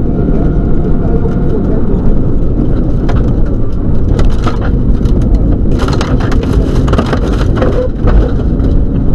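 Subaru Legacy rally car driven hard on a gravel stage, heard from inside the cabin: the engine running under load over a heavy road and tyre rumble. About six seconds in comes a run of sharp clatters, stones thrown up against the body.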